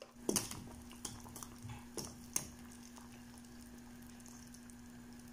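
Carrot slices dropped into a pan of boiling chicken-feet broth: several sharp splashes in the first two and a half seconds, then the broth bubbling steadily, with a low steady hum underneath.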